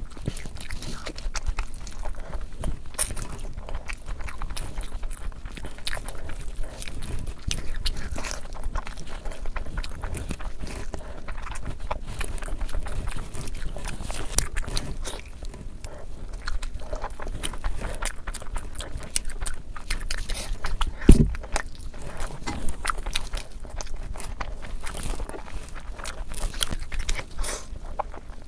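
Close-miked chewing and wet mouth sounds of a person eating curry and rice, with many small smacks and clicks. A single heavy thump about three-quarters of the way through is the loudest sound.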